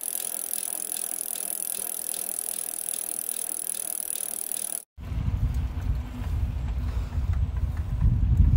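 Mountain bike mechanical sounds, light ticking and rattling over a steady hiss. About five seconds in they cut out briefly, then give way to a low rumble of wind on the microphone with scattered small clicks.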